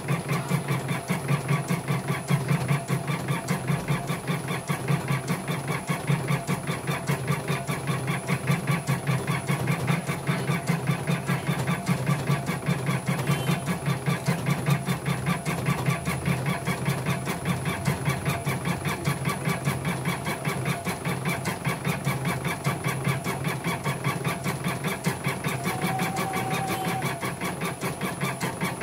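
CNY portable embroidery machine stitching steadily, its needle mechanism running in a rapid, even rhythm. It is a stitching test after the machine was repaired and its thread tension was adjusted.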